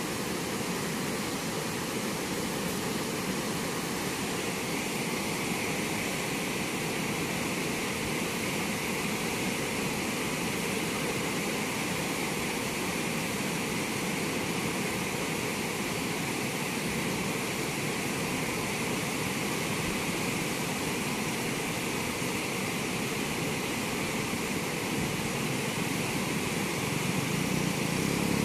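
Turbulent river water pouring steadily through the open sluice gates of a barrage.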